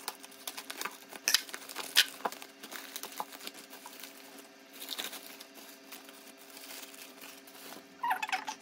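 Scattered taps, clicks and light rustling from handling a frozen pizza and its packaging, over a steady electrical hum.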